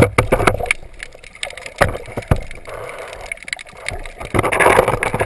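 Underwater noise picked up through a camera housing mounted on a speargun: scattered sharp clicks and knocks from handling, over a rushing water sound that grows louder near the end.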